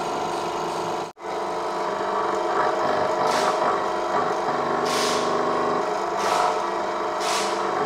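A workshop press running with a steady mechanical drone as its ram pushes a cylinder liner into an engine block. Four short hisses come in the second half, roughly every second and a half, and the sound breaks off briefly about a second in.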